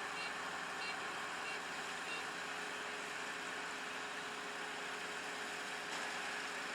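Kubota five-row rice combine harvester running steadily. About four short electronic beeps sound at even spacing in the first two seconds, then stop.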